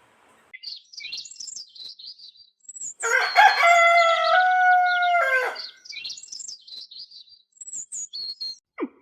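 A rooster crows once, a long held call starting about three seconds in. High bird chirping comes before and after it.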